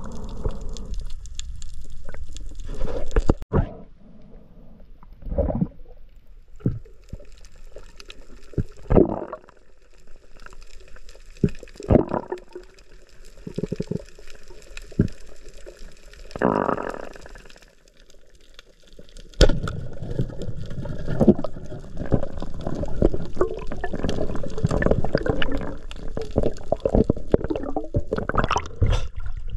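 Water splashing and gurgling in irregular bursts, turning into a denser, steadier churning about two-thirds of the way in.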